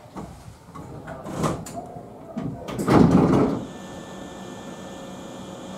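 Hankyu train's passenger doors opening at a station stop: a rush of air and sliding-door clatter, loudest about three seconds in, followed by a steady hum.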